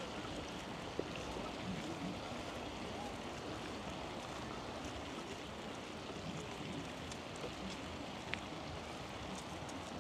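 Steady rushing noise of a bicycle ride picked up by a chest-mounted action camera, with a couple of faint clicks.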